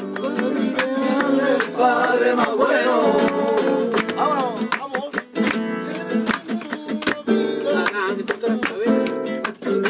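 Nylon-string Spanish guitar strummed in a lively flamenco style, with a voice singing over it in stretches.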